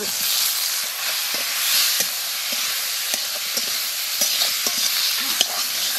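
Onions, spices and tomatoes sizzling in hot oil in a metal kadai, with a metal spatula scraping and clicking against the pan as it stirs.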